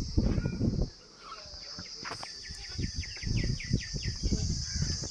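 Steady high insect drone with a bird giving a quick run of repeated falling chirps about two seconds in. Loud low rumbling thumps come near the start and again in the second half.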